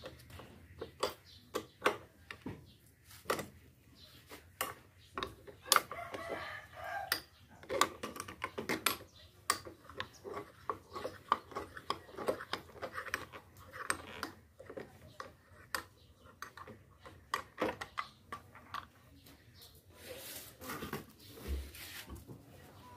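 Repeated light metallic clicks and clinks of a 14 mm open-end wrench being set on and turned against a motorcycle mirror's mounting nut as the mirror is unscrewed.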